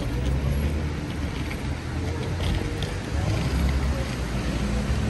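Wind buffeting the microphone: a low, uneven rumble, over faint wet-street ambience.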